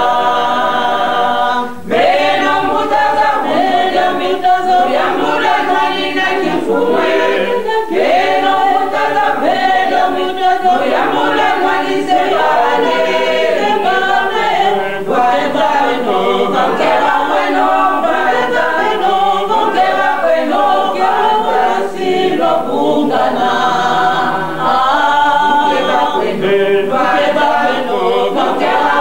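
A choir singing a church hymn unaccompanied, many voices together. It comes from an old cassette recording with the top end dulled.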